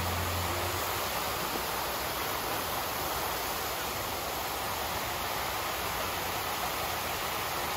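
Steady rushing hiss of a large performance fountain's many tall water jets spraying up and falling back into the pools. A held note of music stops about a second in.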